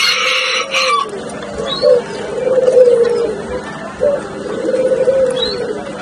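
Several ringneck (Barbary) doves cooing over and over, low rolling coos overlapping one another. A harsher, higher-pitched sound overlays the coos in the first second, and a few faint short chirps come in now and then.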